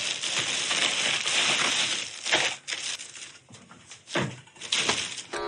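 Thin plastic shopping bags rustling and crinkling as items are taken out of them: steady rustling for the first two seconds or so, then a few short bursts.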